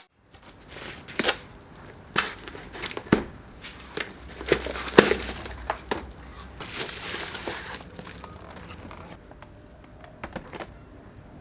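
Handling noises: scattered light clicks and taps, with a stretch of crinkling about seven seconds in.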